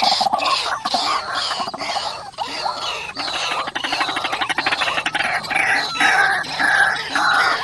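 White-breasted waterhens calling, the repeated 'ruak-ruak' notes coming in an even rhythm. Several calls overlap at different pitches, making a continuous chorus.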